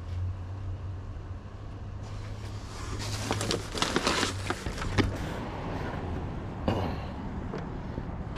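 Scrap being handled in a dumpster: rustling and clattering, with several sharp knocks between about three and five seconds in and one more near the end, over a steady low hum.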